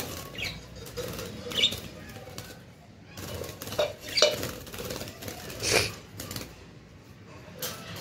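Wire birdcage clinking and rattling as a hand works inside it fixing a clay nest pot to the bars, with budgies fluttering inside; a handful of sharp metallic clinks, the loudest about six seconds in.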